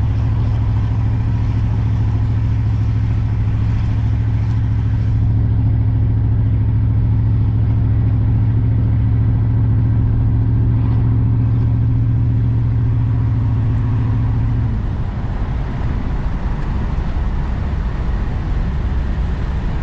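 1993 Chevrolet Caprice wagon's 305 small-block V8 with throttle-body injection, driving at a steady pace with an even, unchanging drone. About fifteen seconds in the steady engine tone drops away, leaving a rougher rumble of road and tyre noise, as when the throttle is let off.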